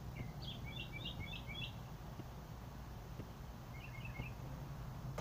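A small bird singing outdoors: a quick run of about five high chirps, then a shorter phrase of three a couple of seconds later, over a steady low background rumble.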